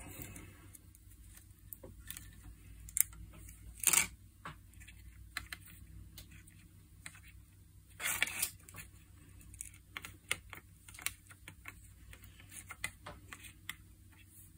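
Small clicks and taps from hands handling a bare circuit board, an LCD panel and its wires on a workbench, with a few louder knocks about three, four and eight seconds in, over a faint steady low hum.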